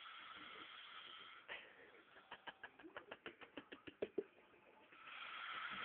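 A sleeping young man snoring quietly. A long raspy breath is followed by a quick run of rattling clicks, about ten a second, and a second long raspy breath starts near the end.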